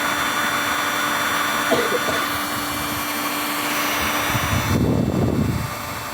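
Hot air rework gun blowing a steady hiss while heating a graphics card's GPU chip and VRAM, a treatment for a card with no display. Near the end the high hiss drops away and a lower rushing sound swells briefly, then it settles quieter.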